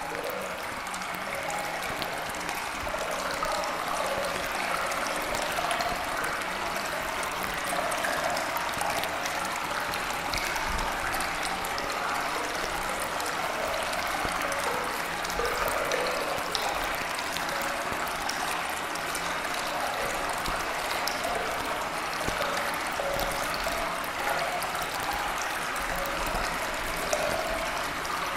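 Steady sound of trickling, running water like a small stream, serving as the background track that masks subliminal affirmations.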